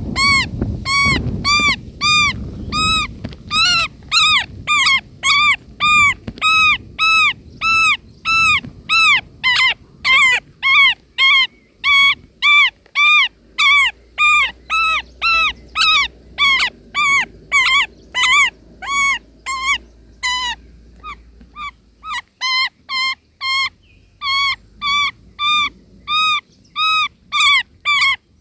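Indian roller nestlings begging: a steady run of short, whining, arched calls, about two a second, with a brief lull a little over twenty seconds in.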